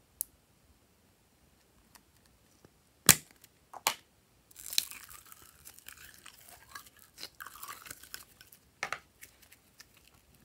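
A plastic slime tub clicks and its lid snaps open, the loudest sound, about three seconds in. Then orange slime squelches and crackles as it is squeezed out of a clear plastic cup and pressed between the fingers, ending with one sharper snap.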